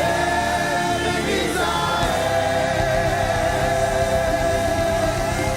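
Gospel worship music: a choir singing with instrumental backing, settling onto a long held note about two seconds in.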